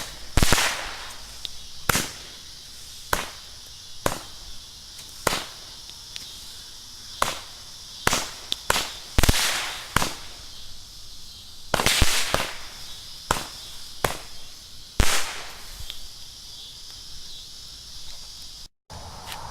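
Consumer firework going off as a series of shots: a sharp bang about once a second, some with a hissing tail. The loud shots thin out after about fifteen seconds.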